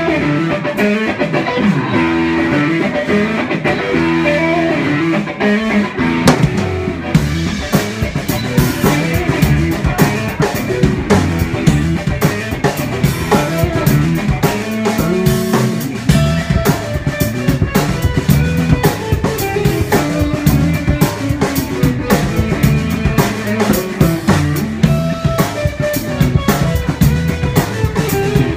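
Live band playing an instrumental passage: electric guitar and upright bass, with the drum kit and cymbals coming in about seven seconds in and keeping a steady beat.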